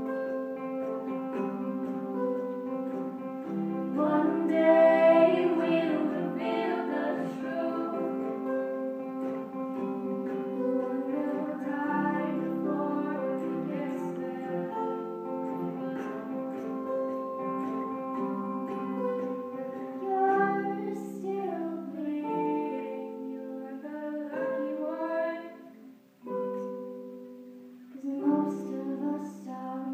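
Live concert music with singing: long held notes layered into chords, with short breaks between phrases near the end.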